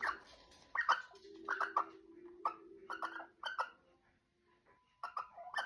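Barn owl making a series of short, sharp clicks, spaced irregularly, over a faint steady hum.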